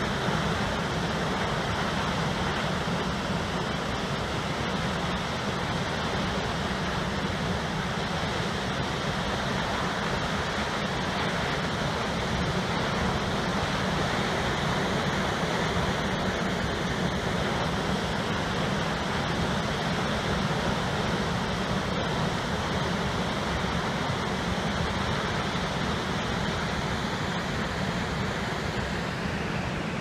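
Steady rushing of water falling down the 33-metre Düden waterfall.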